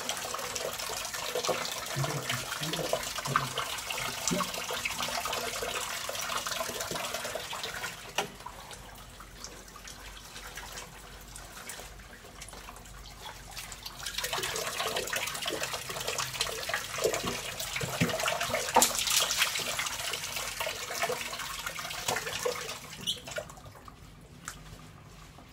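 Water from a tap running into a plastic bucket, with splashing as a dog is washed. The running water is loud for about the first eight seconds, drops away, comes back strongly about fourteen seconds in, and fades near the end.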